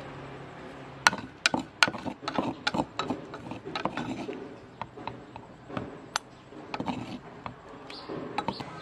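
A metal spoon scraping and clicking against the inside of a wooden mortar as ground roasted peanuts are stirred and scooped out, in irregular sharp clicks that start about a second in.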